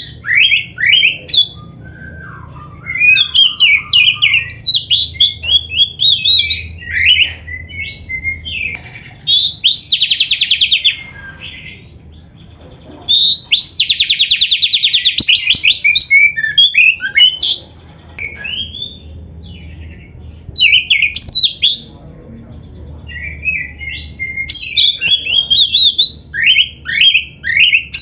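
Oriental magpie-robin singing loudly in a long, varied run of quick whistles, chirps and chatter, broken by two long rapid rattles about ten and fourteen seconds in.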